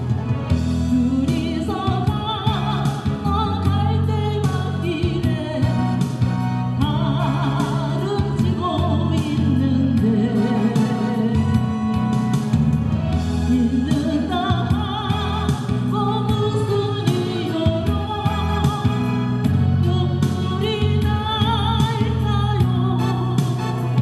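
A woman singing a slow Korean trot song through a microphone over a recorded instrumental backing track, her held notes carrying a wide vibrato.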